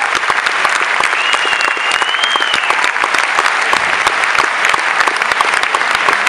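Audience applauding, a dense steady clapping, with one high whistle from the crowd that rises slightly and falls away, starting about a second in and lasting over a second.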